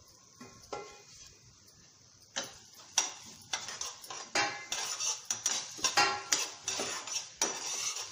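A metal spoon scraping and clinking against a pan as it stirs coriander seeds and lentils being dry-roasted for sambar powder. The strokes are quick and irregular and start about two seconds in.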